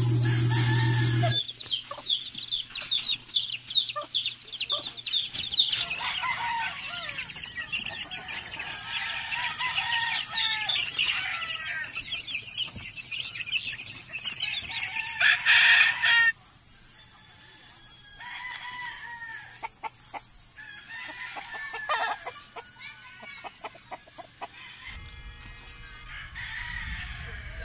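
Chicks and young chickens peeping and clucking: a dense run of quick, high peeps soon after a steady hum at the start, then continued peeping and calls that thin out after about sixteen seconds into scattered chicken calls.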